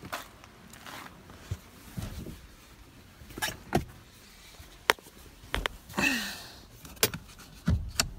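Scattered clicks, knocks and rustles of handling inside a car's cabin, with no engine running, and a short hissing rustle with a falling tone about six seconds in.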